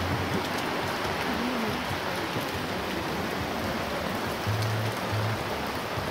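Heavy rain pouring down, a steady dense hiss of drops falling on pool water. Background music is mixed in, with low bass notes coming in near the end.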